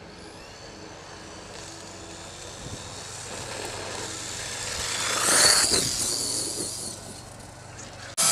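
HPI E-Firestorm electric RC truck with a 5700kv brushless motor speeding past. A high wavering motor whine over a rushing noise builds to a peak about five seconds in, then fades as the truck goes by.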